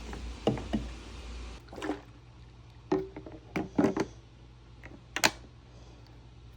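A steady rush, probably water filling the Bissell Little Green's clean-water tank, cuts off about a second and a half in. It is followed by a series of hard plastic knocks and clicks as the tank is handled and closed, the loudest a double knock near the end.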